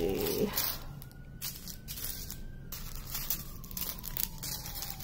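Small plastic zip bags of diamond-painting drills crinkling and rustling as a hand sorts through and lifts them, in a string of irregular rustles.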